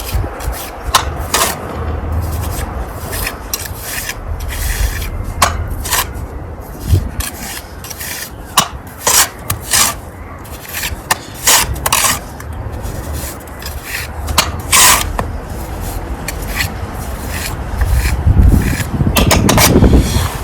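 Steel pointing trowel scraping mortar off a hawk and pressing it into brick joints: short, irregular scrapes, sometimes several close together, over a low rumble.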